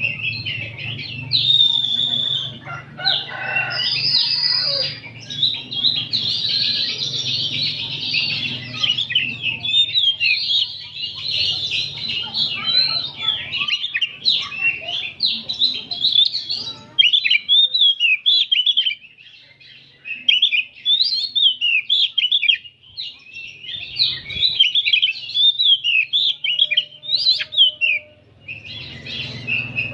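Several oriental magpie-robins (kacer) singing together in a dense run of rapid, varied chirps, whistles and trills, with brief lulls past the middle and near the end. A faint steady low hum lies under the first half.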